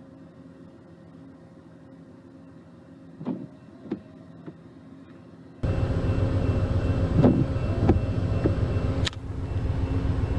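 Steady low hum of a car idling, heard from inside the cabin, with a few light clicks and knocks. About halfway through, the rumble abruptly becomes much louder.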